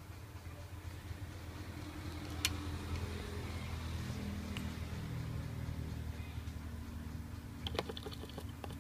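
Low engine drone, rising and falling slowly in pitch, typical of a motor vehicle running nearby. A sharp click comes about two and a half seconds in, and a quick run of small clicks and taps near the end as the phone's circuit board is handled.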